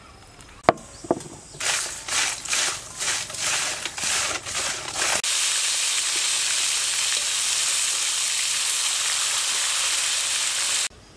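Giant water bugs deep-frying in hot oil in a wok: a sizzle that comes first in uneven surges, then runs steady and loud from about five seconds in, cutting off abruptly near the end. Two sharp clicks come about a second in, before the sizzle.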